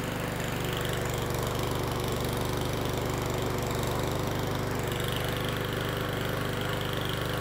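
Craftsman gas push mower's MTD single-cylinder OHV engine running loud and steady, just after it started on the first pull at its first start of the season following a winter in storage.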